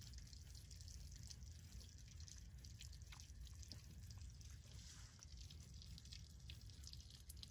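Near silence: a low steady rumble with faint, scattered small clicks and ticks.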